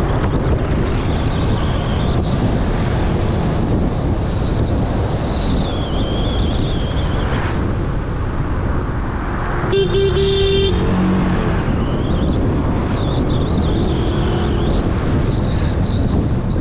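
Steady traffic and road noise, with a car horn honking once for about a second roughly ten seconds in.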